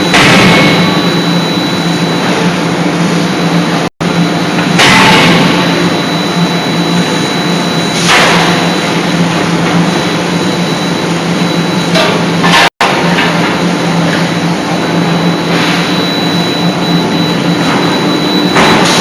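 Loud, steady industrial machine noise from a hydraulic die-forging hammer at work: a constant hum with louder surges every three to four seconds. The sound cuts out completely for an instant twice.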